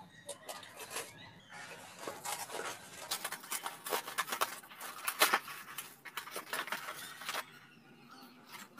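Cardboard parcel being cut open with a snap-off box cutter and pulled apart by hand: a run of scraping, tearing and crackling noises, busiest in the middle and thinning out near the end.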